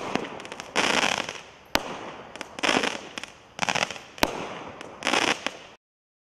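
A 200g multi-shot consumer fireworks cake firing. There are sharp single bangs and four bursts of dense crackling from its crackling mines and chrysanthemums, and the sound cuts off suddenly near the end.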